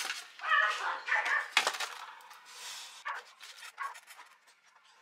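Styrofoam packaging squeaking as it is rubbed and pulled apart, a few high squeaks in the first second and a half. Light clicks and taps of small plastic parts follow.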